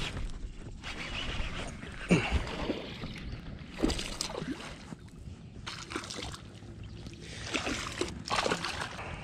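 A hooked largemouth bass splashing and thrashing at the surface beside a kayak as it is reeled in, in several separate bursts of splashing.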